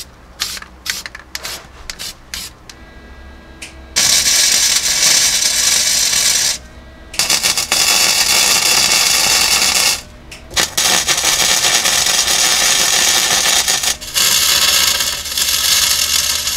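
A string of short, sharp taps, then a wire-feed welder running flux-core wire as a new steel floor pan is welded in. The welding comes as long runs of steady, loud crackling hiss, with brief stops about six and a half, ten and fourteen seconds in.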